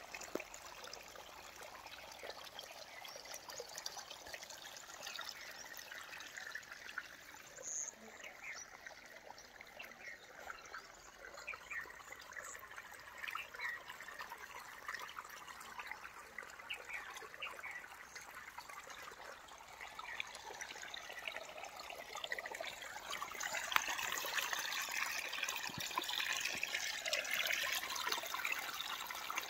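Irrigation water trickling and running through the flooded furrows of a young maize field, a steady watery trickle that grows louder in the last several seconds.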